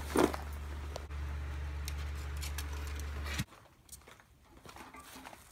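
A low, steady motor hum that cuts off suddenly about three and a half seconds in, leaving faint scattered clicks and knocks.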